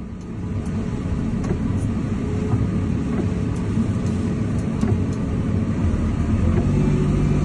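A motor vehicle running with a heavy low rumble that grows louder, with a steady low engine hum near the end.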